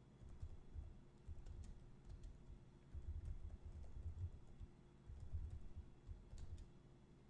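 Computer keyboard typing: faint, uneven runs of keystrokes with short pauses between them.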